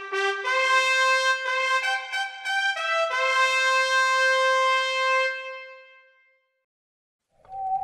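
Trumpet-led brass fanfare: a quick run of notes ending on a long held note that fades out about six seconds in. After about a second of silence, a new sound starts just before the end.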